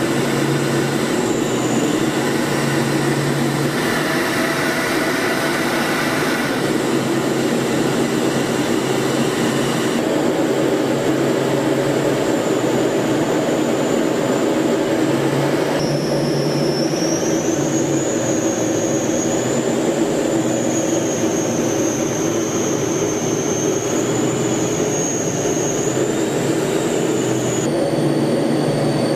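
Steady roar of turbine engines and rushing air inside an aircraft in flight, with a high turbine whine that wavers in pitch. The sound shifts abruptly several times.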